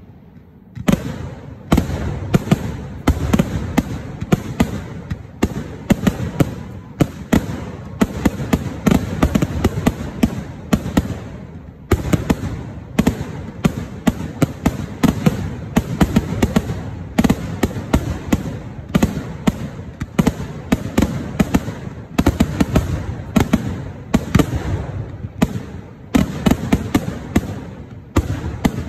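Kerala temple-festival fireworks (vedikettu): a rapid, continuous barrage of bangs, many a second, from aerial shells and ground-fired crackers. It starts about a second in and eases briefly near the middle.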